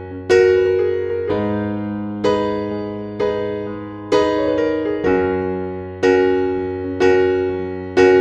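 Slow, gentle background music on electric piano, chords struck about once a second and left to fade over a held bass note.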